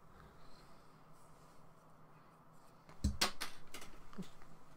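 A small hard object, an empty paint container, falls onto a hard surface about three seconds in: one sharp thump followed by a few quick clattering knocks. Before that, only faint handling sounds.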